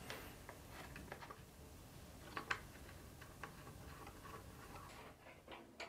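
Faint scattered metallic ticks and clicks as a threaded Arctic Freezer 34 Duo AMD standoff is screwed by hand into the motherboard backplate. The clearest click comes about two and a half seconds in.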